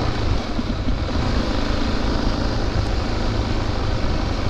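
Dirt bike engine running steadily while riding along, mixed with wind noise on the helmet-mounted microphone.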